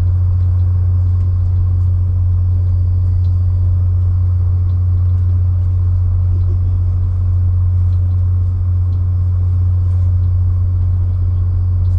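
Steady low rumble inside a moving passenger train, even and unchanging throughout.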